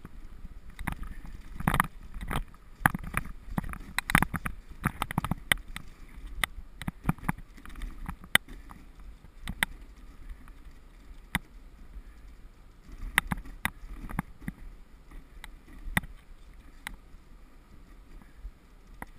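Wooden sled running over a packed-snow trail: a steady low rumble from the runners, with irregular knocks and clatters as the sled jolts over bumps, thickest in the first few seconds and again a little past the middle.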